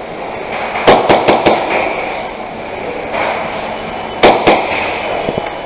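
Gas blowback airsoft gun firing: a quick string of four sharp shots about a second in, then two more about three seconds later, each with a clack of the blowback action.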